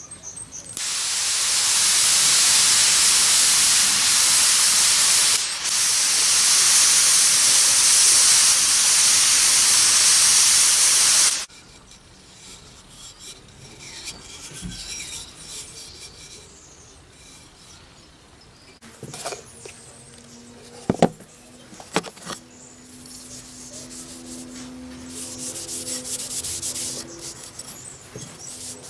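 Handheld gas torch hissing steadily for about ten seconds as its flame scorches a wooden hatchet handle, then cutting off suddenly. It is followed by a few sharp knocks from handling.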